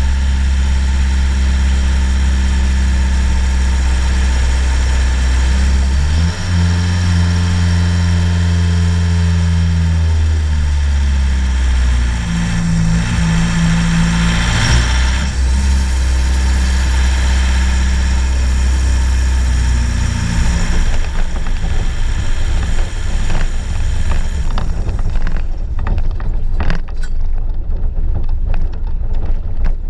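Volkswagen Golf 1.9 TDI diesel engine running, on a car whose turbo has failed. It idles steadily, steps up in revs about six seconds in and shifts again around ten to fifteen seconds, with a hiss near the middle. The engine fades out about twenty seconds in, leaving a rushing noise with scattered knocks.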